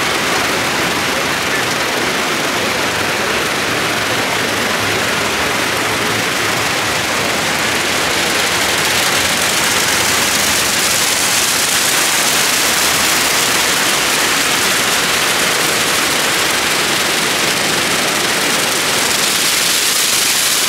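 Rotating car wash brushes spinning against a car body, their strips whipping over the panels in a dense, steady swishing rush that grows a little louder about halfway through.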